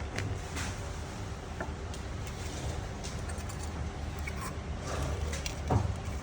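Workshop machinery running with a steady low hum, scattered light clicks and taps, and a sharp knock a little before the end.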